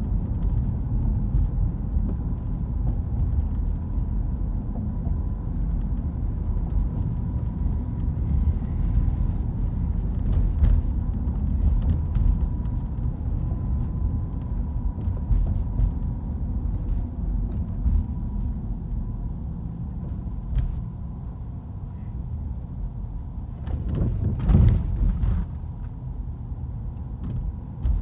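Steady low rumble of road and engine noise heard from inside a moving car's cabin, with a brief louder rush near the end.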